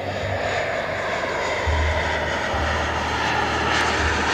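Giant radio-controlled Airbus A380 model flying past, its kerosene-burning model jet turbines giving a steady rushing whine, with the pitch dipping slightly near the end.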